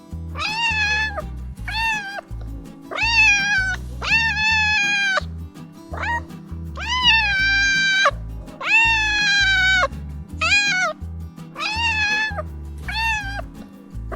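A kitten meowing over and over, about ten high-pitched meows of varying length, each rising at the start and falling away at the end. Background music plays underneath.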